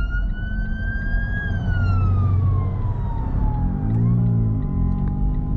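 Fire engine siren in a slow wail: the pitch rises, then falls over a couple of seconds, and about four seconds in it switches to a steady held tone. It is heard from inside a small car's cabin over steady road noise.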